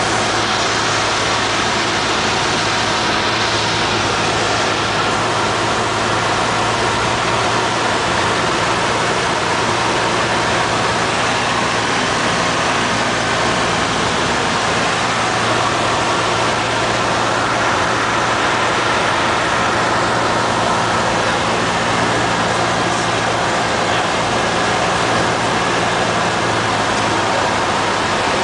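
Cessna 172N's four-cylinder Lycoming engine and propeller running steadily in flight, heard inside the cabin as an even drone mixed with airflow noise.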